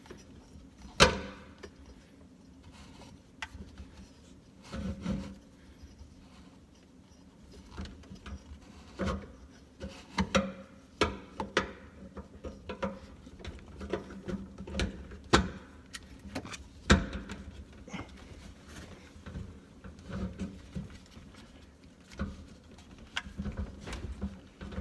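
Irregular knocks, clicks and scraping as a garbage disposal and its drain pipe are handled and fitted up under a kitchen sink, with a sharp knock about a second in and another near the 17-second mark.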